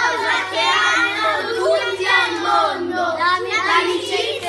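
A group of children singing their team motto together as a chant, many voices at once without a pause.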